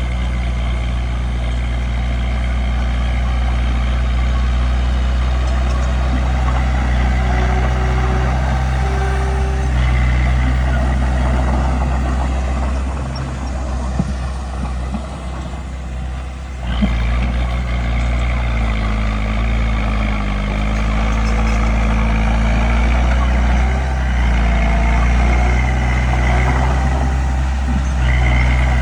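Bulldozer's diesel engine running steadily under load while pushing dirt. It eases off about halfway through, then picks back up with a knock.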